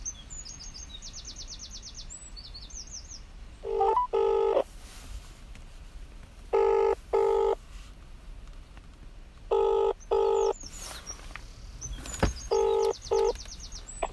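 Telephone ringback tone heard down the line: four British-style double rings ("ring-ring"), about three seconds apart, as the call rings out before it is answered. Faint bird chirps and trills sound between the rings.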